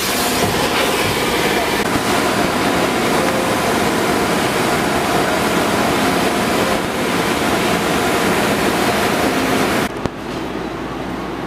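Water spraying and streaming over a car's glass, a loud steady rushing. About ten seconds in it cuts off abruptly, leaving a quieter background with a low hum.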